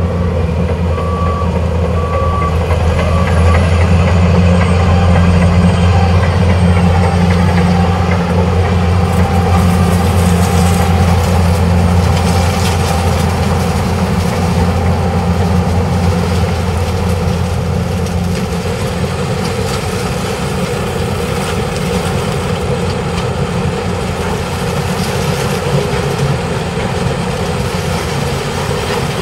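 Case IH sugarcane harvester running steadily while cutting cane, a heavy diesel drone, louder in the first half, with a tractor pulling an infield wagon alongside. A few short beeps sound in the first few seconds.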